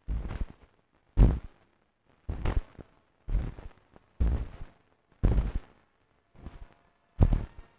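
Experimental film soundtrack: short, sudden noisy bursts with a deep low end, about one a second, each fading within half a second and separated by silence.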